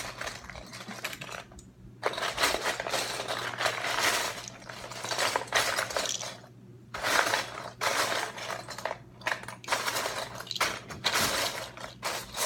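Loose plastic Lego bricks clattering and clicking as a hand rummages through a pile of pieces, in stretches with two brief pauses.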